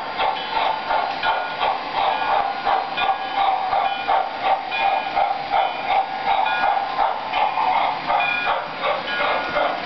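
O-scale model steam train with woodside passenger cars rolling along the track, a steady rolling hum with a rhythmic clatter.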